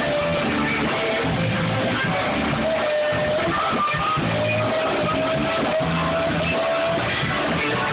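Live blues band playing: lead guitar holds long notes that bend in pitch, over a steady bass line.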